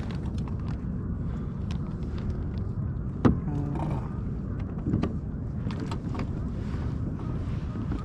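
Steady low rumble on the camera microphone, with light clicks and knocks as a fish is handled on a plastic kayak; one sharper knock about three seconds in.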